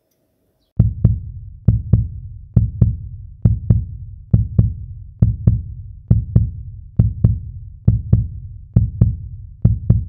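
Heartbeat-style sound effect: pairs of low thumps, lub-dub, repeating a little faster than once a second, starting about a second in.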